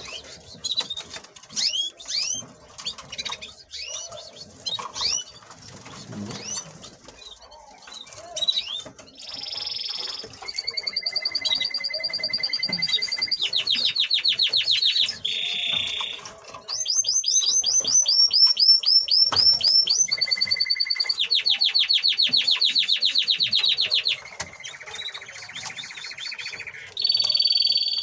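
Nestling canaries begging with short rising cheeps while being hand-fed. From about nine seconds in, a canary sings loud, high, fast-rolling trills and sustained notes.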